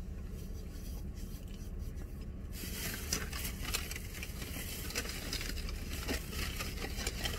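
Faint rustling and scraping of hands handling food packaging, with many small ticks, starting suddenly about two and a half seconds in over a low steady car-cabin hum.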